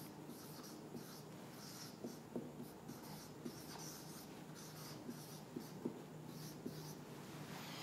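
Faint squeak and scratch of a felt-tip marker on a whiteboard, in short strokes as words are written out, with a few soft taps.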